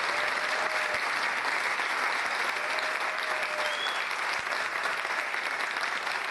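Concert audience applauding steadily at the end of a piece, with a couple of brief calls heard over the clapping.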